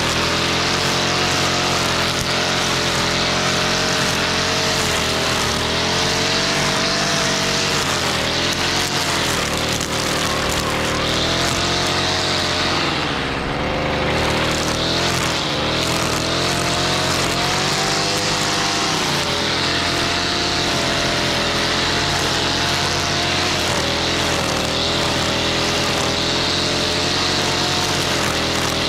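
Stihl FS55R string trimmer's 27.2cc two-stroke engine running steadily as it warms up after a cold start. Its speed wavers slightly and sags briefly about halfway through.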